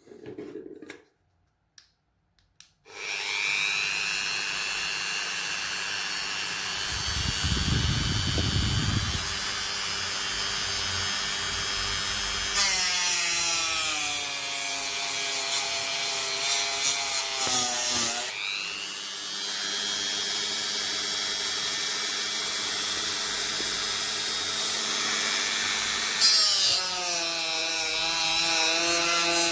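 A small electric power-tool motor switches on about three seconds in and runs loudly and steadily. Its pitch falls and recovers several times, as under changing load, with a gritty rubbing sound throughout.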